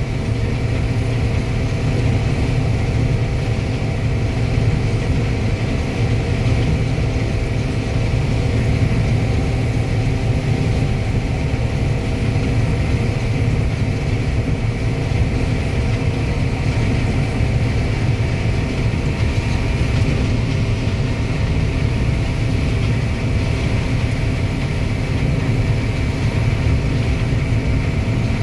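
Combine harvester running steadily while harvesting corn: a constant low engine drone with an even mechanical hum over it.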